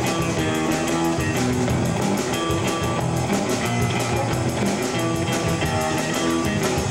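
Rock band playing: electric guitar, bass guitar and drum kit, with steady cymbal strokes over the guitars.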